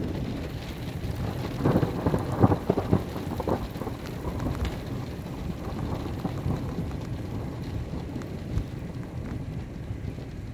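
Thunderstorm: a low rumble of thunder runs under steady rain. A louder, crackling stretch of thunder comes from about one and a half to three and a half seconds in, loudest near its middle.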